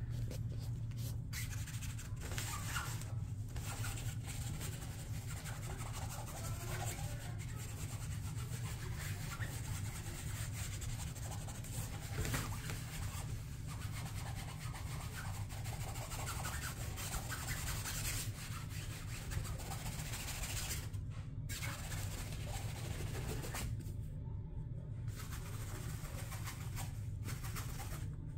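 Continuous rubbing and rustling noise over a steady low hum, pausing briefly twice near the end.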